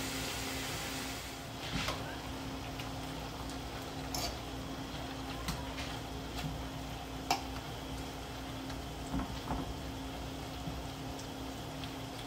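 Chicken pieces frying quietly in olive oil in a pan, with a few sharp clicks of a utensil against the pan as they are stirred. A steady low hum sits under it.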